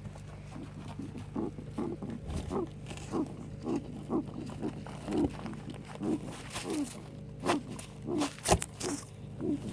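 A 4-year-old male guinea pig making repeated short noises, about two a second, with a few sharper, louder ones near the end. The owner cannot tell whether they are coughing or sneezing.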